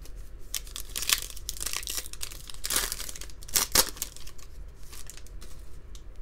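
Foil wrapper of a basketball trading-card pack crinkling as it is handled and torn open. It is a run of crackles that is loudest a little past the middle, followed by lighter rustling as the cards are drawn out.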